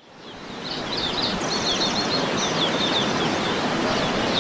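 Birds chirping and trilling over a steady rushing background, fading in over the first second.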